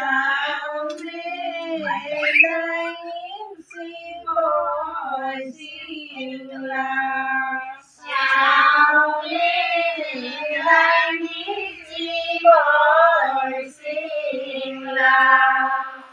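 Women singing Assamese devotional naam for the goddess Ai, in long held phrases with short breaks between them.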